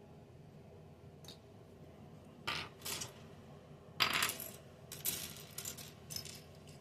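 Small plastic LEGO pieces clattering and rattling in short bursts: two at about two and a half and three seconds in, the loudest about four seconds in, then several more over the next two seconds.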